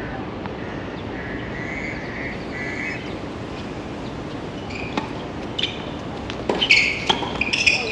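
Tennis ball struck with racquets on a hard court: the first sharp hit about five seconds in, then a quick run of hits and knocks as the rally goes on, over a steady background hum. Two short high chirps come in the first three seconds.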